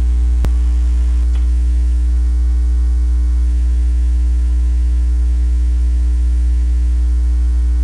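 Loud, steady electrical mains hum in the recording, with a stack of steady overtones above it, and a single sharp click about half a second in.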